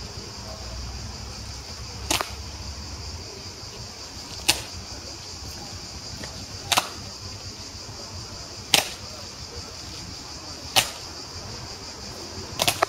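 Evzone guards' hobnailed tsarouchia clogs stamping on stone paving in a slow ceremonial march: sharp clacks about every two seconds, six in all, the last one doubled.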